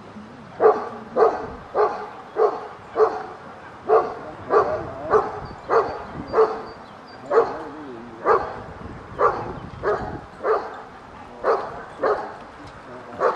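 Briard barking in a steady series of short, loud barks, about one or two a second, beginning just under a second in. This is guard barking at a man reaching for the basket the dog is guarding.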